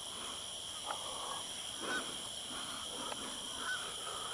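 A few short animal calls scattered over a steady high hiss, with a couple of small clicks.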